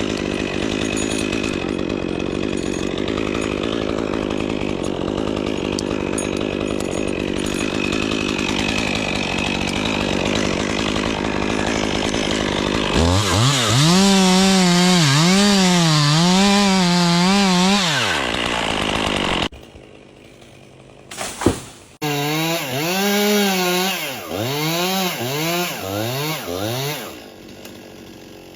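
Chainsaw cutting wood, its engine pitch repeatedly dipping and recovering as it loads up in the cut. About two-thirds of the way through the sound drops away abruptly, with a single sharp click, then the saw runs again in short revs before going quieter near the end.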